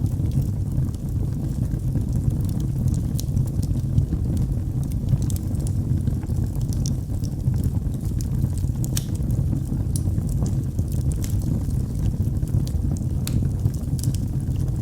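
Wood fire burning in a fireplace: a steady low rumble of flames with frequent sharp, irregular crackles and pops.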